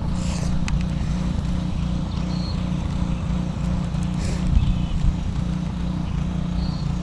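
A steady low engine drone, with a couple of short high chirps over it.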